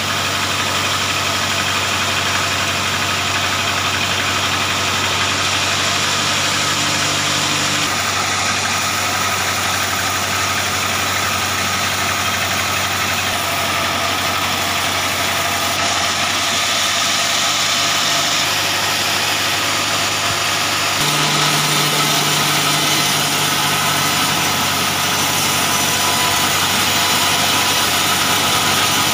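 Large band sawmill running steadily as a log is pushed through its blade, a constant machine hum whose tone shifts abruptly twice.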